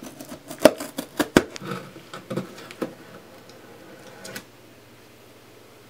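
A folding knife cutting through the packing tape on a cardboard box, with sharp clicks and scraping that stop about four and a half seconds in.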